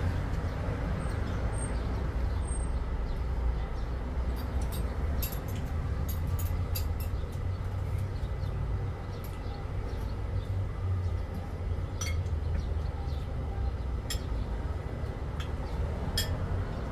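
Spoons and forks clicking against plates and bowls now and then, over a steady low rumble.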